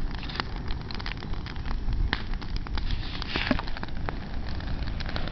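Small fire of burning twigs and brush crackling, with irregular sharp pops over a low steady rumble.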